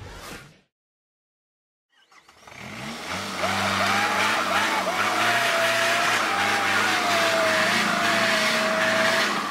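After a short silence, a vehicle engine fades in and runs at steady revs with a high, wavering whine over it, then fades out near the end.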